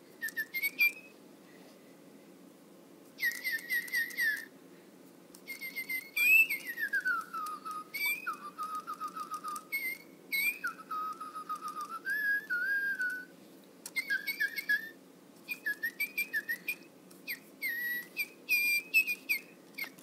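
Little Live Pets Secret Sweetie toy songbird whistling and chirping through its small speaker: bursts of quick repeated chirps, a long falling whistle about six seconds in, and some held whistled notes, with short pauses between phrases.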